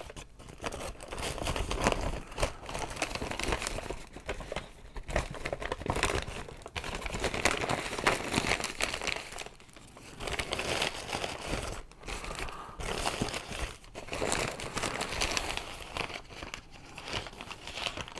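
Brown kraft-paper bag crinkling and rustling in uneven bursts as it is handled and opened by hand, with short quiet gaps between.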